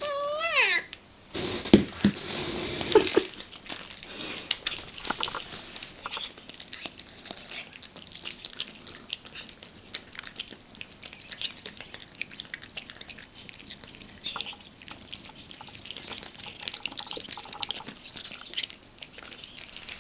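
A cat meows once, then there is a loud rustling clatter with a few knocks for about a second and a half. After that the cat eats tuna and crunchy dry food: a long run of small wet smacking and crunching clicks.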